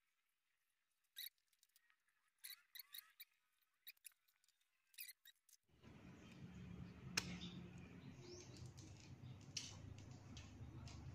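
Faint, scattered metallic clicks and small squeaks of hand work on a motorcycle's sprocket and drive chain, over near silence. About six seconds in, a steady low background hum starts and the clicks go on.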